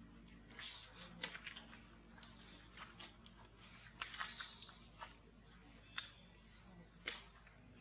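Scattered soft clicks and wet smacks with a few faint high squeaks, from long-tailed macaque mothers and their suckling infants.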